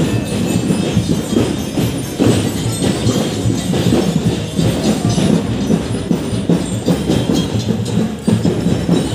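Parade music driven by loud, steady drumming and percussion in a fast, even beat.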